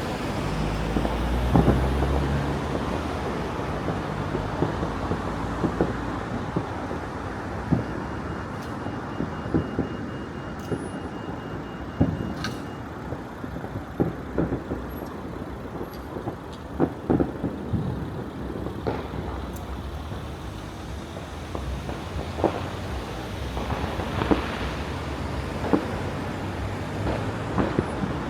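Distant fireworks going off, irregular sharp bangs and pops every second or so, over a steady low rumble of traffic.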